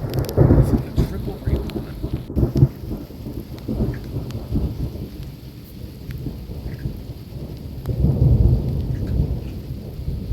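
Rain falling, with a low rumble that swells about half a second in and again around eight seconds.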